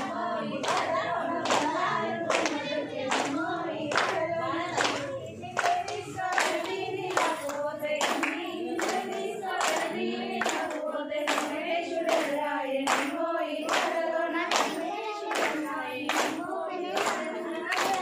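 A group of women singing a Telugu Bathukamma folk song together, clapping their hands in a steady beat.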